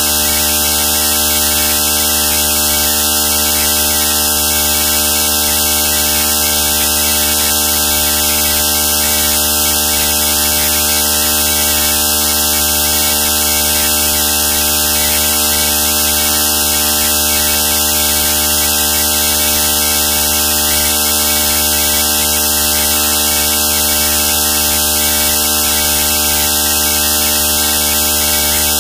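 Loud, steady electrical hum and static: a buzz of many stacked tones under constant hiss, unchanging throughout, with no speech or music.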